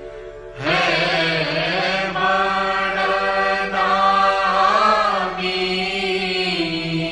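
Devotional Hindu chant to the guru (guru vandana) sung as music: a voice comes in about half a second in and holds long notes with a wavering pitch over steady sustained tones, then falls back near the end.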